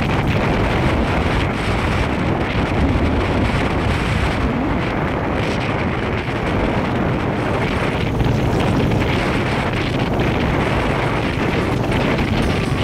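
Wind buffeting the microphone of a moving motorcycle, a steady dense rush with the bike's engine and road noise mixed in.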